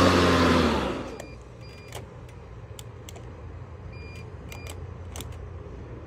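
Greenworks brushless battery lawn mower's motor and blade spinning down over about the first second as its uncharged battery cuts out, followed by scattered clicks and a few short high beeps as it does not restart.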